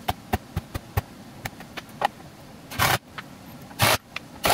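A string of light clicks as small screws are picked up and set into place, then a cordless drill-driver runs in two short bursts about a second apart, driving the handle's screws into the plywood case top.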